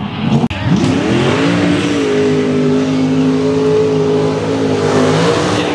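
A square-body Chevy mud racing truck's engine revs up from about half a second in, climbing over a second or so, then is held at high revs as it churns through the mud pit, dipping slightly near the end. Before that, another truck's engine is briefly heard and cut off abruptly.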